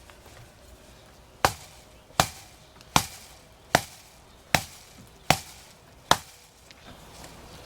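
Seven sharp, evenly spaced blows, about one every three-quarters of a second, from a hand tool striking something solid.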